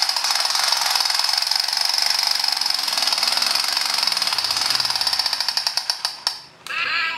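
Toy M16 rifle's rapid-fire sound, a fast, even rattle that runs for about six seconds and then cuts off. Near the end a different toy sound effect with wavering pitched tones begins.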